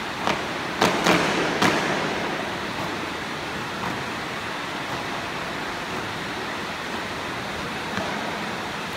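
Four sharp unison impacts from a marching drill team in the first two seconds, with a short echo after each, then a steady hiss of hall and crowd noise.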